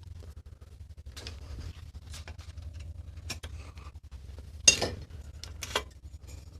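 Light metal clinks and taps of bicycle parts and hand tools being handled and set down, with two sharper metal knocks near the end, over a steady low hum.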